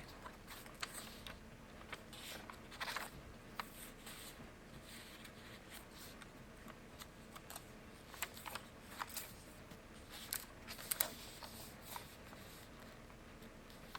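Faint rustling and soft ticks of paper journal pages and tags being handled and turned, with a few sharper ticks about three seconds in and again around eleven seconds in.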